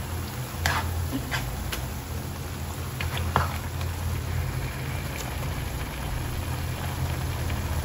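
Tomato and minced-meat sauce sizzling in a frying pan, with a few short scrapes and taps of a spatula against the pan in the first few seconds, over a steady low hum.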